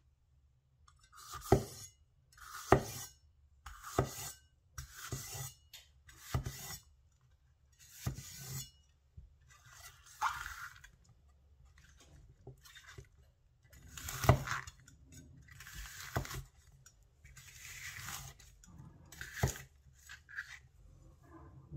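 Chinese vegetable cleaver chopping green bell pepper on a wooden cutting board: a dozen or so separate chops about a second apart, each a crisp crunch through the pepper and a knock of the blade on the board. Around the middle the chopping pauses while the cut pieces are pushed together across the board.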